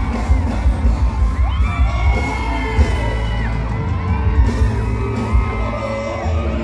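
Concert crowd screaming and cheering over live band music with a steady bass beat.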